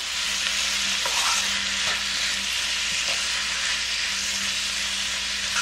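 Soaked dried bellflower-root (doraji) strips sizzling steadily in hot garlic oil in a frying pan as a wooden spatula stirs them, with a few light scrapes of the spatula. The roots are being stir-fried straight from soaking, without boiling.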